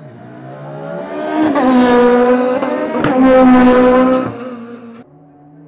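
Racing sports-prototype engine at high revs climbing away, holding a steady high pitch. There is a quick upshift with a crack about halfway through. The sound then fades and cuts off suddenly.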